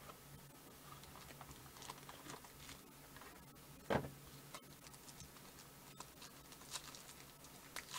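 Faint handling noise of a foil trading-card pack and shrink-wrapped card boxes being picked up: scattered small clicks, taps and rustles, with one louder knock about four seconds in.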